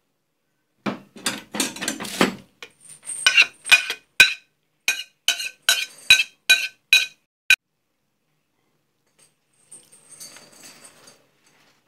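A metal spoon scrapes cooked chicken off a ceramic plate, then clinks against it about a dozen times in quick succession, each clink ringing briefly, as the last pieces are knocked into the pot.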